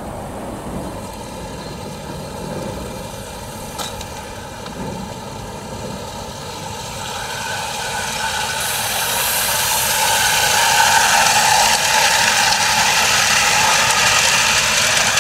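Small methylated-spirit fired live-steam garden railway locomotive running close by: a steady hiss of steam and running noise with no distinct chuff, growing louder over the second half as the engine comes near.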